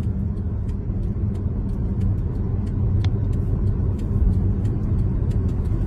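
Steady low road rumble of a car driving on a highway, heard from inside the cabin.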